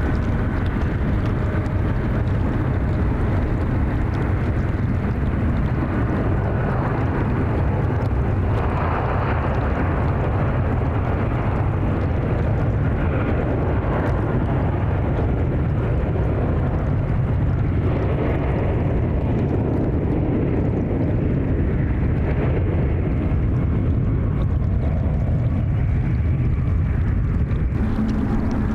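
Airbus A350 airliner's Rolls-Royce Trent XWB jet engines running, a steady low rumble.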